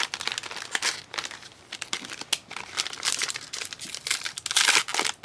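Crinkling and rustling of trading-card pack wrappers being handled and opened, a quick irregular run of crackles.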